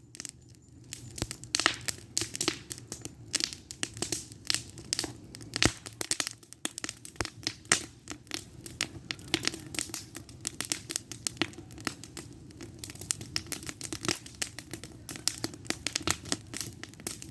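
Wood fire of old fence pickets crackling: frequent, irregular sharp pops and snaps over a faint steady low hum from the fire.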